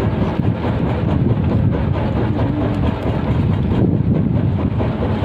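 A fishing boat's engine running with a steady low rumble, with wind buffeting the microphone.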